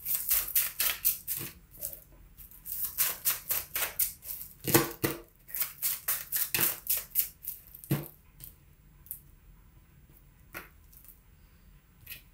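Tarot deck being shuffled by hand: fast runs of crisp card clicks, one short run and then a longer one, tapering off after about eight seconds to a few scattered clicks.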